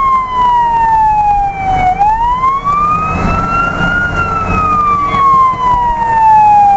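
Fire engine's siren sounding a slow wail, heard from inside the cab: the pitch falls for about two seconds, rises for about two, then falls again toward the end. The truck's engine runs as a low rumble underneath.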